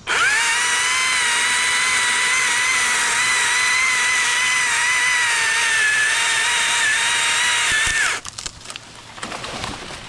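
Chainsaw cutting through the tree at full throttle, a steady high whine held for about eight seconds before it stops, followed by scattered knocks and crackling.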